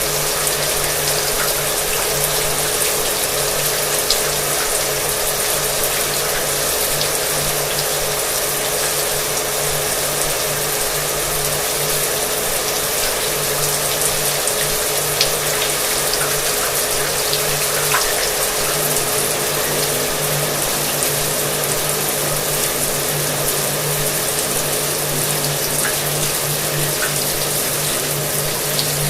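Shower water running steadily with a hair dryer running underneath, its motor adding a constant hum to the hiss of the water.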